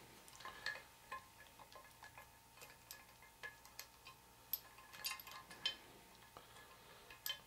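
Faint, irregular metallic clicks and light clinks as a steel key is worked along the shaft through the stacked gears of a South Bend Heavy 10 lathe's gearbox, with the sharpest clinks around five seconds in and near the end.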